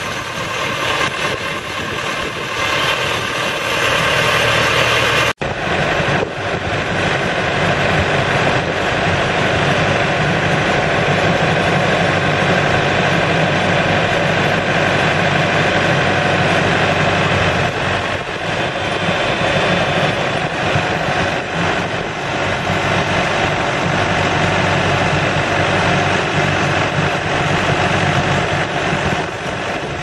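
A 1990 JCB 1700B backhoe's Perkins four-cylinder diesel engine running steadily, with a brief break in the sound about five seconds in.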